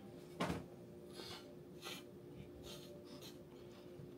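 A person breathing in short sniffs through the nose, about one every half second to second, with one soft knock about half a second in and a faint steady hum underneath.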